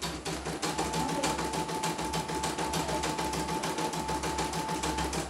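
CNY E900 portable embroidery machine stitching a test design after a parts replacement, its needle going in a rapid, even beat. A steady whine runs under the stitching from under a second in until just before the end.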